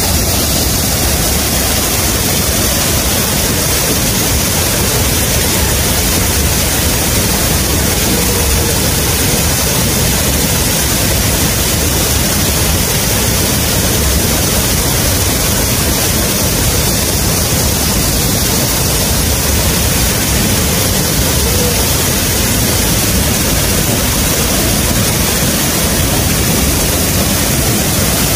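Loud, steady rush of falling water from a waterfall.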